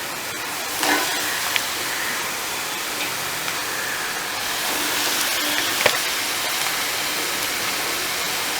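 Chopped tomatoes and spring onions sizzling in hot oil in a kadai: a steady frying hiss, with a couple of light clicks from the spoon about a second in and again near the end.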